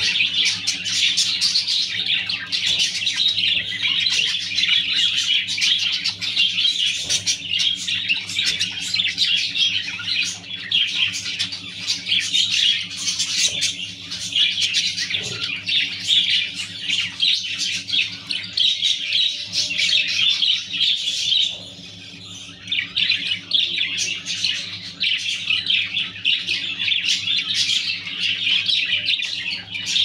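Clearwing budgerigars chattering and chirping in a continuous, busy stream, with a short pause a little past the middle. A steady low hum runs underneath.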